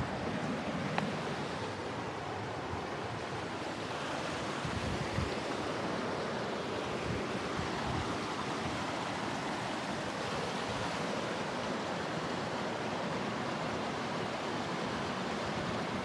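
Steady rushing of flowing water from a rain-fed creek or waterfall, an even hiss that does not change, with some low wind flutter on the microphone.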